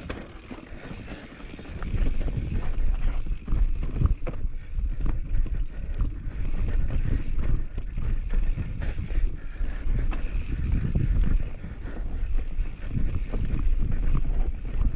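Mountain bike rolling fast down a rocky dirt trail: wind rushing over the camera microphone and tyre rumble, with frequent knocks and rattles as the bike goes over rocks. Quieter for the first couple of seconds, then loud.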